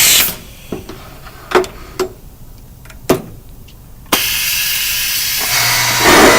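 A drilling machine for drawer parts running with a loud hiss, which cuts off just after the start. A few sharp knocks follow as the part is handled, then the machine starts up again about four seconds in and grows louder near the end.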